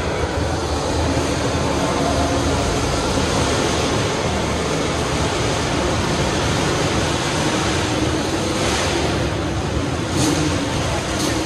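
Steady road and engine noise of a moving vehicle, a dense even rush that swells slightly near the end.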